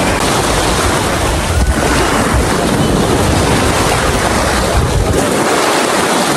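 Small sea waves breaking and washing around a wader's legs in shallow surf, a steady rush of foaming water. Wind buffets the microphone with a low rumble that drops away about five seconds in.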